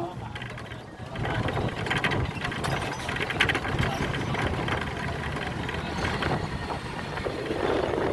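A small engine running with a rattling, clattering sound.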